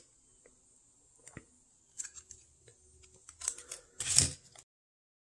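Coins in plastic flips and cardboard holders being handled and set down on a table: scattered soft plastic crinkles and light clicks, with the loudest, a brief rustle, about four seconds in.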